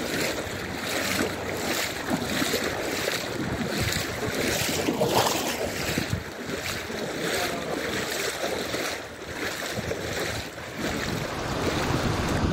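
Floodwater sloshing and splashing in a regular rhythm of about two a second, the sound of moving through water in a flooded street, with wind buffeting the microphone.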